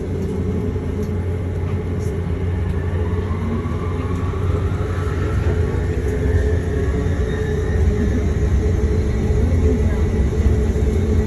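Airport shuttle train running with a steady low rumble and hum. Its motor whine rises in pitch over several seconds as it picks up speed.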